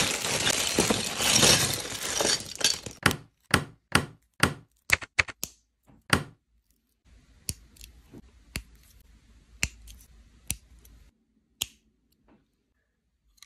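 Clear plastic bag of LEGO parts crinkling as it is handled, then LEGO bricks clicking as they are pressed together: many sharp, separate clicks at irregular intervals.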